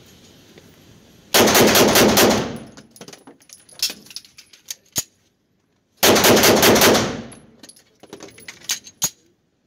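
Arex Rex Delta 9mm pistol fired in two rapid strings of hollow-point rounds, each about a second long, with the shots echoing in an indoor range. A few sharp single clicks fall between the strings. This is a function test of hollow-point ammunition through different magazines, and the pistol runs without a malfunction.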